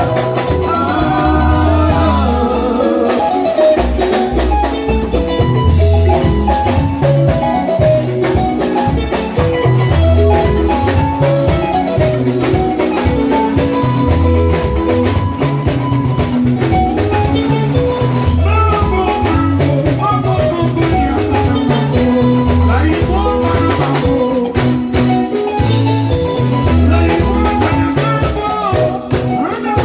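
Band playing Congolese rumba: quick, bright melodic lines over a steadily pulsing bass and drum beat.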